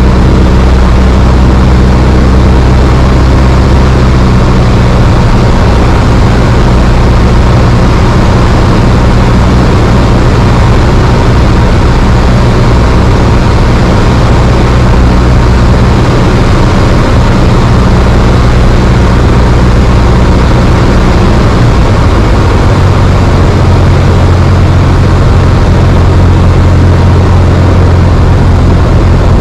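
Single-engine light aircraft's piston engine and propeller running steadily in flight, heard inside the cabin as a loud drone with rushing wind noise. The engine note changes about two-thirds of the way through and then holds steady again.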